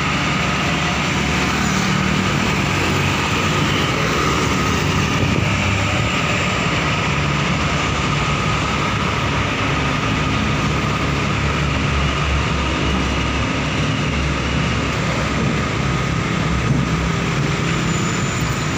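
Heavy tractor-trailer hauling an oversize load on a multi-axle trailer, its diesel engine and tyres running with a steady rumble amid road traffic noise.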